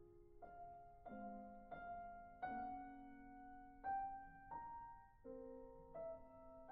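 Quiet background piano music, slow melody of single held notes changing about every half second to a second.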